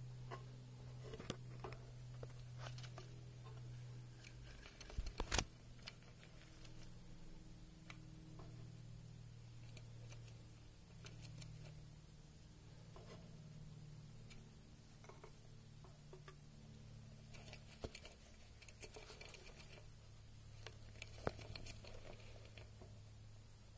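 Faint steady low hum, with scattered small clicks and taps and one sharper knock about five seconds in.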